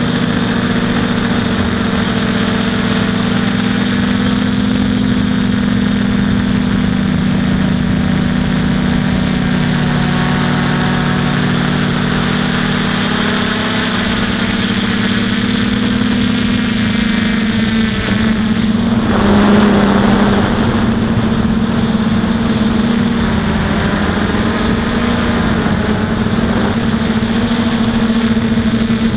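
Quadcopter's motors and propellers droning, heard onboard, a steady hum whose pitch dips and rises again with throttle. About two-thirds of the way through there is a brief louder rushing noise.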